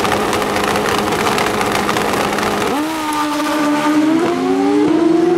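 Two Pro Street drag motorcycles held at steady revs on the start line, then launching about two and a half seconds in. The engine note climbs in pitch and jumps in steps as they shift up through the gears while pulling away.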